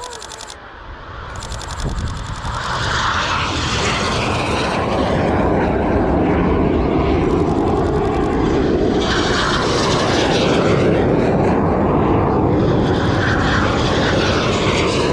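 Aircraft engine noise building up over the first few seconds as an aircraft comes close, then staying loud and steady.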